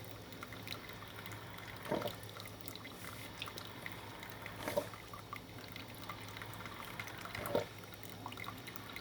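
Black+Decker Brew 'n Go single-serve drip coffee maker brewing, coffee trickling steadily into the cup under a low steady hum. A few short gurgles or splashes stand out, about two, five and seven and a half seconds in.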